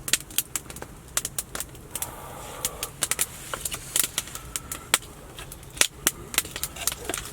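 Campfire crackling, with frequent sharp, irregular snaps and pops of burning wood.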